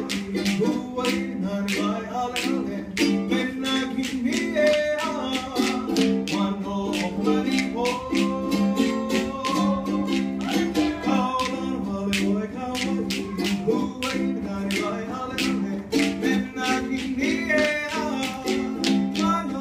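Live Hawaiian song accompanying a dance: a ukulele strummed in a steady rhythm, with a man singing to it through a microphone.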